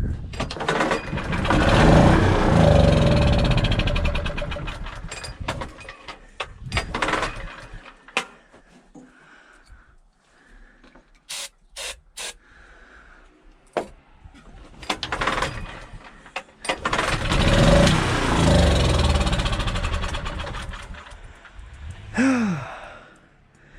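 Small petrol engine being pull-started in two long spells of cranking, sputtering without catching, with a few sharp clicks in between. The owner suspects that its carburettor, though ultrasonically cleaned, is still dirty.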